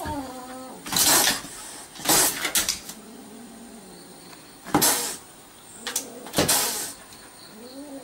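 A dog and a kitten face off through a car's side window, the dog pawing at the door: five short breathy bursts of noise, with faint cries between them and near the end.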